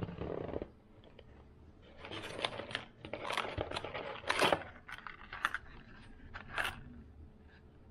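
Fishing lures being unpacked by hand: a short muffled rustle at the start, then from about two seconds in a run of crackling and tearing of plastic packaging, with small clinks.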